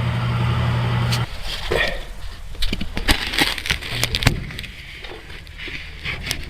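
Furnace's steady low hum cuts off abruptly about a second in, as the furnace is switched off, followed by scattered clicks, knocks and rustling from handling the furnace panel and air filter.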